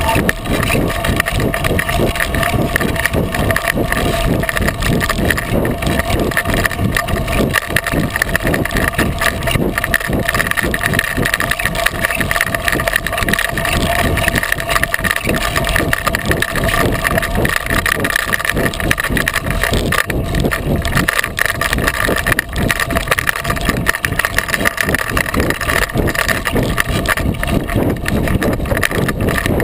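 Knobby 36-inch Coker unicycle tyre rolling over a dry dirt and gravel trail, heard close up through a camera mounted on the unicycle: constant loud rolling noise with a dense clatter of small knocks and rattles.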